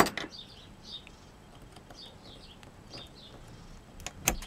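Small metal clicks of a screwdriver working at the bent-over tabs on an old potentiometer's metal back cover. There is a sharp click at the start, faint high chirps in between, and a few more clicks near the end.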